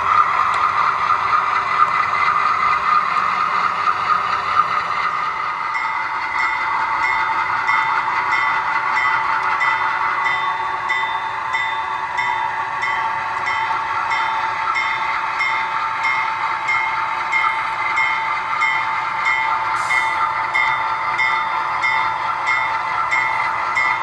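HO-scale Conrail GE B36-7 model locomotive's sound decoder playing a diesel engine running steadily as the train moves. From about six seconds in, a bell rings at a steady, regular beat.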